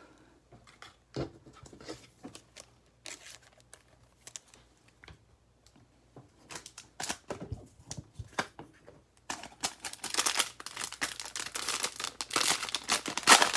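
Foil wrapper of a 2020 Panini Mosaic football card pack being torn open and crinkled by hand. Before that come a few scattered light taps and rustles of handling. The tearing starts about nine seconds in and grows denser toward the end.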